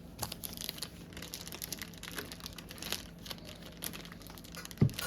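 Plastic packaging crinkling and rustling as a soundbar is unpacked, with a short dull thump near the end.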